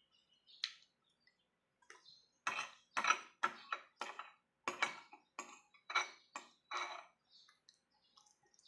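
A metal spoon scraping and clinking against a ceramic bowl as it scoops up bilo-bilo. The strokes come in a run of about eleven, roughly two a second, through the middle of the stretch, after a single sharp click near the start.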